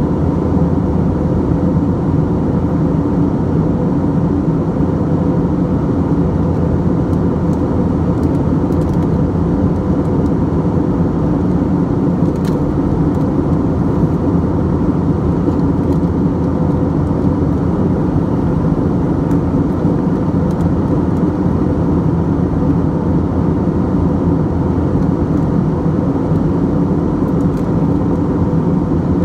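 Steady cabin noise of an Airbus A321-231 in flight, heard at a window seat: the drone of its IAE V2500 turbofans and rushing air, with a low hum and a few steady tones. A few faint ticks sit on top near the middle.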